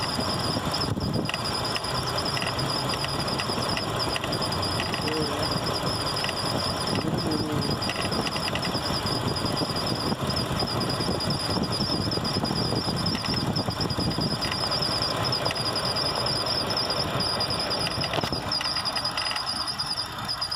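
Mitsubishi Nativa engine running steadily with a continuous high-pitched, fluttering squeal, the chirp of a bent water pump once the engine is at working temperature, and light irregular ticking that the video puts down to a failing accessory-belt auto-tensioner.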